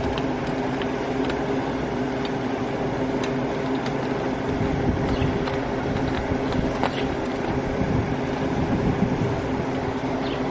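Steady mechanical running drone, like a vehicle with its engine running, holding a few constant hum tones, with occasional light clicks over it.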